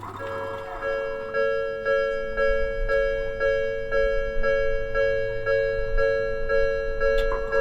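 Japanese railway level-crossing warning bell starting up a moment in and ringing steadily, an electronic two-note clang repeating about twice a second: the signal that a train is approaching and the crossing is closing.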